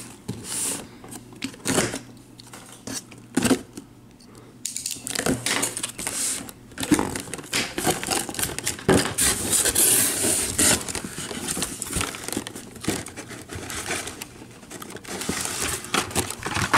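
Cardboard shipping case being opened by hand: flaps pulled apart and folded back with scraping and rustling, then blister-carded toy cars handled and slid out, giving irregular plastic clicks, knocks and crinkles.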